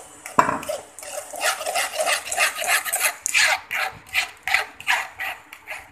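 Metal spoon scraping and pressing mango pulp through a steel mesh strainer: a knock just under half a second in, then rhythmic scraping strokes about three to four a second.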